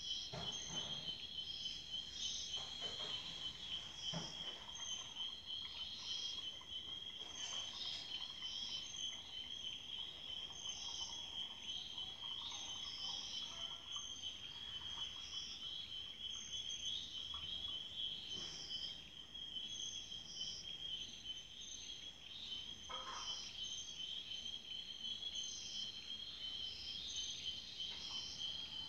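Chorus of night-singing insects: a steady, high, pulsing trill with a higher chirp repeating about every second and a half above it. A few faint knocks are heard, one about a second in, one about four seconds in and one past the middle.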